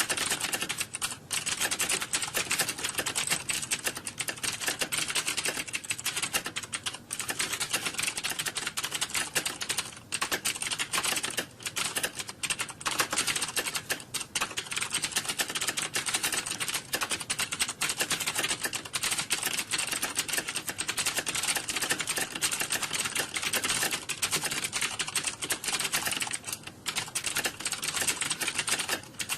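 Computer keyboard being typed on fast and without a break, a dense run of key clicks with a few short pauses.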